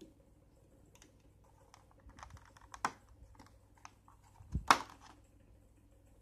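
Plastic ruler being worked out of a thin plastic blister-pack tray: a run of light clicks and crinkles, a sharp snap about three seconds in, and the loudest crack just before five seconds as it comes free.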